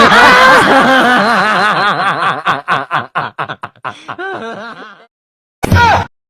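Comedic laughter sound effect: a rapid run of pitched 'ha-ha-ha' laughs, about four or five a second, that slows and fades out after about five seconds, followed by a brief separate falling cry near the end.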